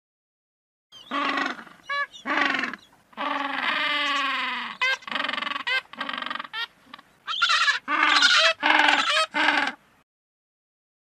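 King penguins calling: a string of pitched, warbling calls starts about a second in, each lasting under a second, with one longer call running from about three to five seconds in.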